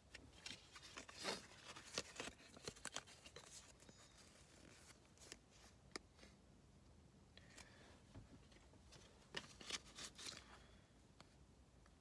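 Paper lottery tickets being handled and shuffled: quiet crisp rustling and crinkling in two spells, one near the start and one near the end.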